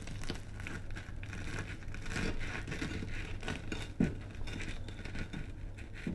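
Knife and fork cutting through a crisp, pan-toasted quesadilla tortilla: a dense run of small crunches and crackles, with one louder knock about four seconds in.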